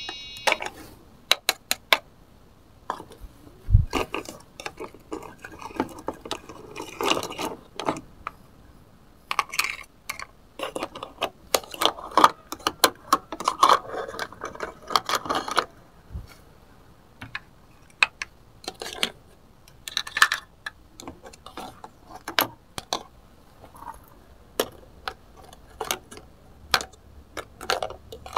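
Irregular clicks, taps and light scrapes of hard plastic toy kitchen pieces: a plastic spatula working in a toy frying pan and plastic toy food being lifted onto a plastic plate. The handling is busiest in the first half, with one duller knock about four seconds in.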